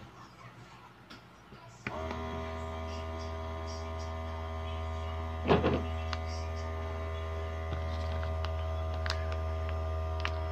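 RED FISH vacuum sealer's pump motor switching on about two seconds in and running with a steady hum as it draws the air out of a plastic bag. A brief louder noise comes about halfway through.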